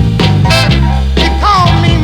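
A rhythm and blues record playing from vinyl, with a steady bass line, regular drum and cymbal hits, and a lead line that slides up and falls away about one and a half seconds in.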